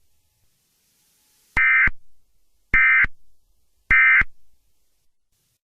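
Three short bursts of EAS digital data tones, each about a third of a second long and a little over a second apart, with a faint echo after each. They are the SAME end-of-message code that closes an Emergency Alert System message.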